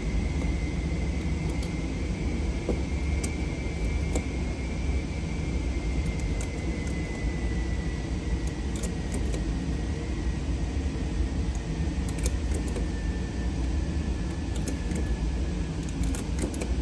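Steady low rumble of an indoor shooting range's ventilation, with a faint high whine slowly falling in pitch and scattered light clicks of handling gear at the bench; no shots are fired.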